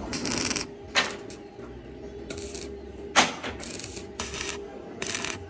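Stick (arc) welder crackling in several short bursts as tack welds are laid on galvanized steel box tubing, with two sharp metal knocks in between, about a second and three seconds in.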